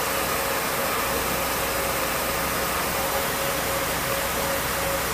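Steady cockpit noise of a B-52H Stratofortress in flight: the constant rush of its eight TF33 turbofan engines and the airflow, with a couple of faint steady whining tones over it.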